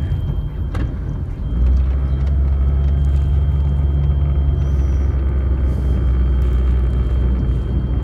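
Steady low rumble inside a moving car's cabin, growing louder about a second and a half in and holding.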